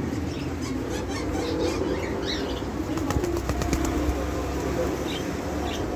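African grey parrot flapping its wings, with a quick run of wingbeats about halfway through, over a steady background hum and a few short high chirps.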